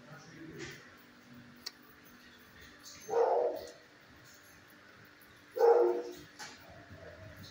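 A dog barking twice, single loud barks about two and a half seconds apart.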